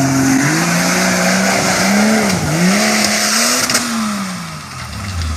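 Off-road 4x4's engine revving under changing throttle: the pitch climbs, dips twice and climbs again, then falls away near the end.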